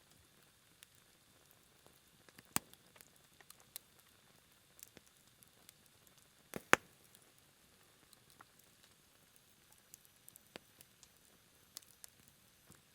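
Low, ember-like wood campfire giving sparse crackles and pops over a faint hiss, with light rain pattering on a tent. The sharpest pops come about two and a half seconds in and as a double pop a little past halfway.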